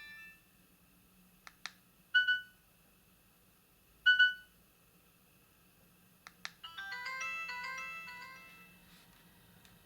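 Ringtones previewed on a Maxcom MM462BB feature phone's speaker: one tune cuts off at the start, then come a few sharp key clicks and two loud short tones about two seconds apart. About seven seconds in, a fast rippling ringtone melody starts and fades out within two seconds.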